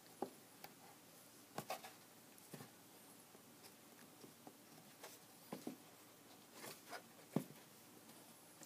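Near silence broken by faint, scattered taps and scrapes of bookcloth and board being handled while the cloth is turned in over the board's edge. The sharpest tap comes about seven seconds in.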